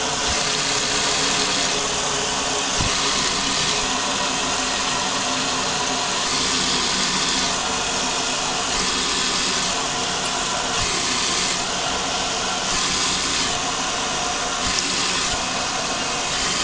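Kitchen faucet running steadily into a stainless steel pot in the sink, filling it with water.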